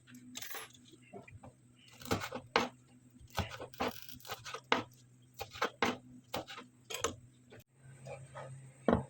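Irregular sharp knocks and taps of kitchen food preparation, about a dozen spread unevenly, over a faint low steady hum.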